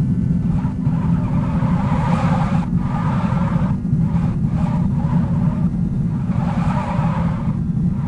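Steady, loud low rumble, with fainter muffled sounds in the middle range that come and go above it.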